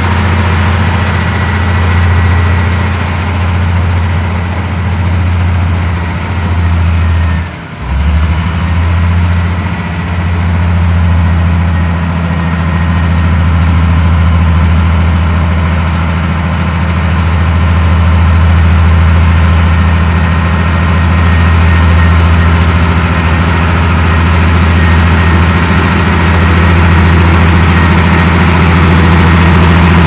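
Komatsu D58P crawler bulldozer's diesel engine running steadily with a deep drone as it pushes dirt; the sound dips sharply for a moment about eight seconds in.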